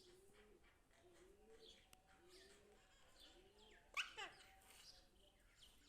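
A pet parrot gives one short, sharp call with quick falling pitch sweeps about four seconds in. Under it, soft, low, arched notes repeat a little faster than once a second.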